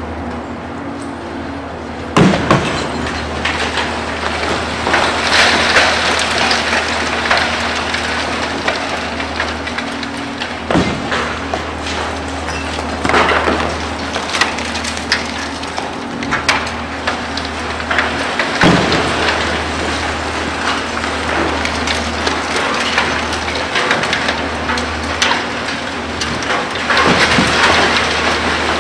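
Building demolition: concrete and debris cracking, breaking and crashing down in a continuous rattle. Sharp impacts come at irregular intervals over a steady low engine drone from the demolition machinery.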